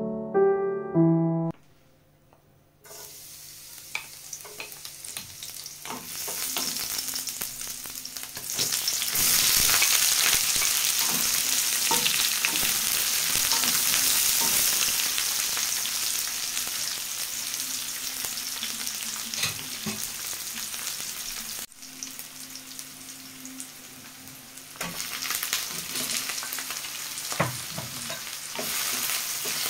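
Sliced onion and garlic, then ground meat, sizzling in hot oil in an enamel wok while a wooden spatula stirs and scrapes the pan. Piano music ends about a second and a half in; the sizzle starts a little later, grows louder about a third of the way through, drops suddenly about two-thirds through and picks up again near the end.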